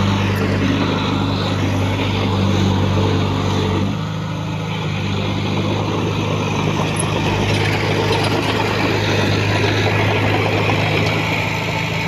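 Heavy diesel engine of earthmoving machinery running steadily, easing off slightly about four seconds in.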